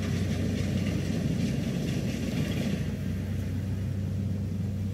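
Rice combine harvester's engine running steadily, a low even drone.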